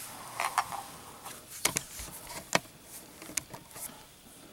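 A handful of short, sharp clicks and taps from a stainless-steel digital kitchen scale being set down on a tabletop and its buttons pressed with gloved fingers.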